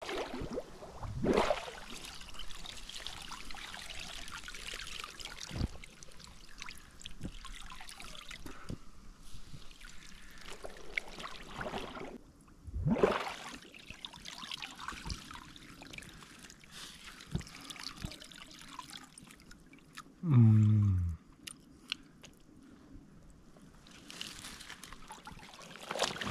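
Water sloshing and dripping as a man moves through a shallow forest pond, with scattered knocks and a short, loud sound falling in pitch late on.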